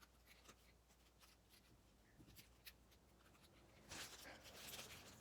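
Near silence with a few faint clicks. About four seconds in comes a stretch of scraping and rustling as the plastic parts of a small phone tripod are handled and its head is turned.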